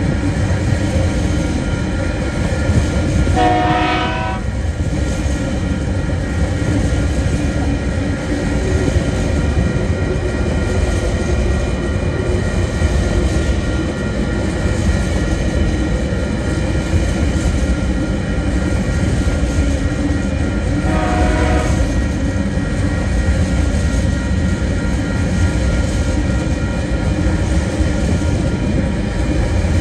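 Container freight train wagons rolling past at a level crossing: a loud, steady rumble and clatter of steel wheels on rail. Two short shrill tones cut in, about four seconds in and again about twenty-one seconds in.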